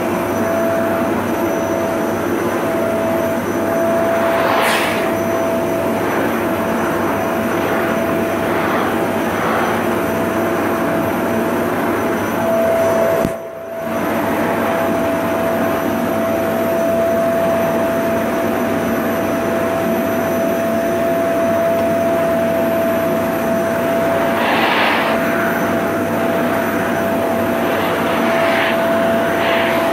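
Vacuum cleaner running: a steady loud rush of air with a constant motor whine. It cuts out for a moment about halfway through, and a few brief surges of hiss rise over the drone.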